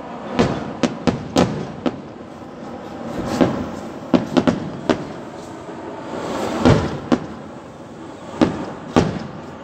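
Kerala vedikettu fireworks display: a dozen or so sharp bangs go off at uneven intervals, some in quick clusters, over a steady rumbling background of more explosions.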